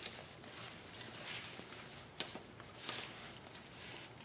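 Faint handling sounds of a drum brake self-adjuster being cleaned by hand: a few light metal clicks and short scrubbing or rubbing sounds.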